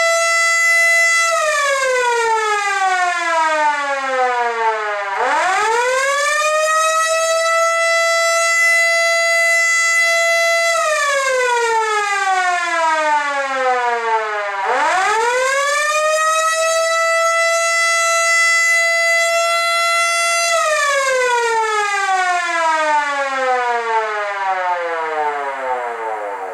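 Federal Signal Model D electromechanical siren sounding an attack signal, switched on and off by hand. It holds a steady, loud single-tone wail, then coasts down in pitch for about four seconds when cut off. It spins back up to full pitch and holds about five seconds, twice over, and ends on a third fall.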